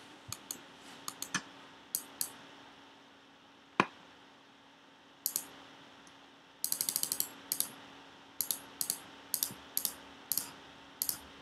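Computer keyboard keystrokes and mouse clicks: scattered single clicks, with a quick run of about eight keystrokes about six and a half seconds in. A faint steady hum runs underneath.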